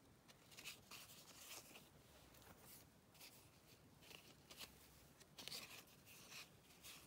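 Faint, scattered rustling and scraping of cardboard baseball cards being handled and slid across one another, over near silence.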